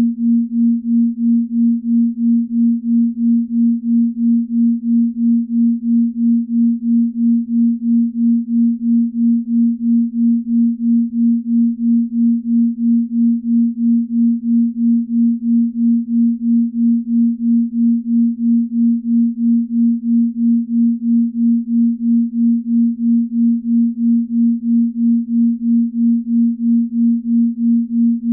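Binaural beat: a single steady, low pure tone that swells and fades evenly about two and a half times a second, the slow beat between two slightly different tones used for deep sleep.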